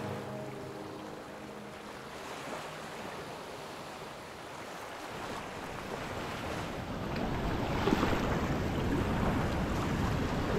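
Small waves washing onto a sandy beach, a steady surf hiss, with wind on the microphone getting stronger about halfway through. The last notes of music fade out at the very start.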